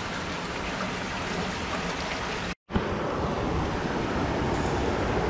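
Steady rushing noise of moving floodwater and wind, with a brief dropout to silence about two and a half seconds in.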